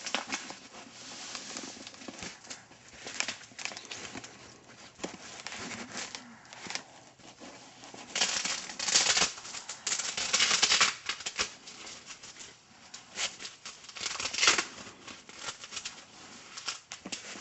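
Fabric wheelchair foot strap being handled and adjusted: rustling, scraping and clicking, with two longer ripping bursts about eight and ten seconds in, typical of velcro being pulled apart.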